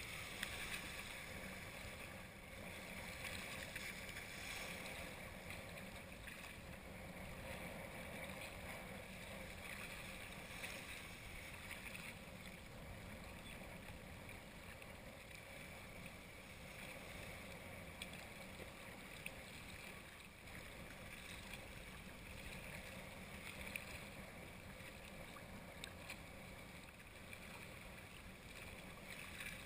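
Steady wash of wind and small choppy waves lapping, with a few brief faint knocks.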